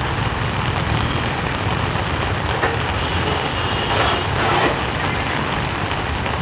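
Steady street noise: a motor vehicle engine running, with a rumble low down under a constant hiss.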